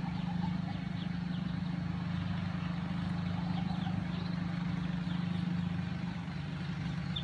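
A steady low mechanical hum, with faint, high, falling peeps from Muscovy ducklings now and then.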